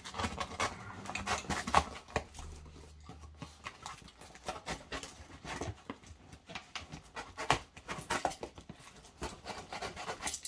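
Cardboard shipping box being cut open: a box cutter slitting the packing tape, and the corrugated flaps scraping and rustling as they are pulled back, in irregular short scratches.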